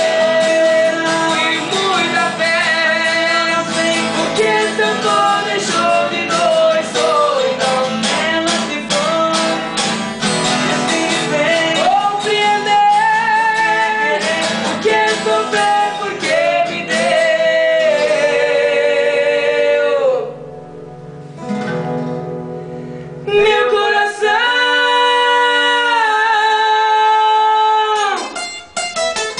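Two male voices singing a sertanejo song together over two strummed steel-string acoustic guitars. About 20 seconds in the singing stops for a few seconds while the guitars play on more softly, then the voices come back with long held notes.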